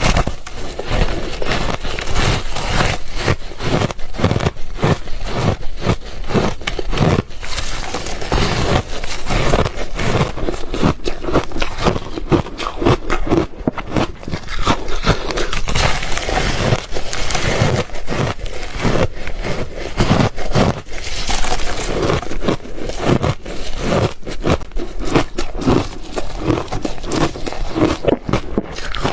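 Someone biting and chewing crunchy refrozen ice and freezer frost close to the microphone: a dense, continuous stream of crunches and crackles.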